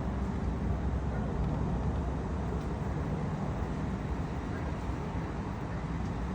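Steady wind noise on the microphone, a low, even rumble with no breaks.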